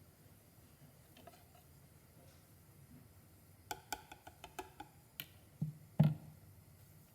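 Kitchen utensils knocking against cookware: a quick run of light clicks and taps, then two heavier knocks, the second the loudest.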